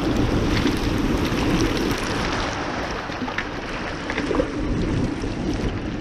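Steady rushing of a waterfall pouring into a fast river, with spatters of falling water close by.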